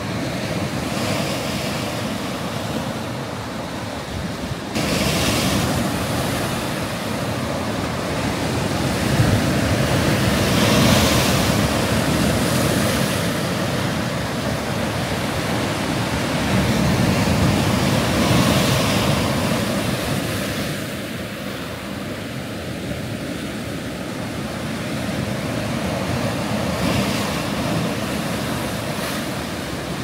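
Sea waves breaking and washing onto the shore, a steady rush of surf that swells roughly every six to seven seconds. The level jumps up abruptly about five seconds in.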